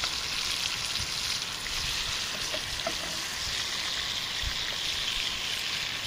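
Bacon sizzling steadily in a skillet, an even frying hiss.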